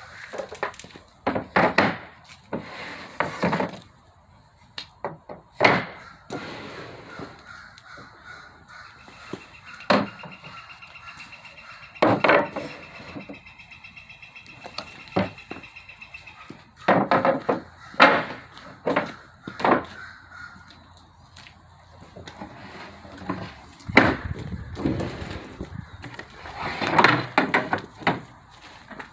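Solid alder table leaves knocking and sliding against the table frame as they are pulled out and handled, in sharp irregular knocks. A bird caws harshly in short series at intervals.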